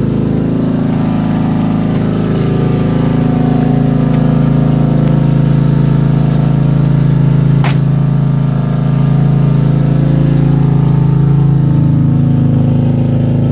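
Freshly rebuilt BMW E46 M3 S54 straight-six running steadily at idle, just after its first start following the rebuild. A single brief sharp tick a little past halfway.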